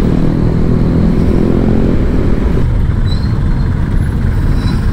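Honda Click scooter's single-cylinder engine running under way in traffic, with heavy road and wind rumble on the microphone, steady throughout.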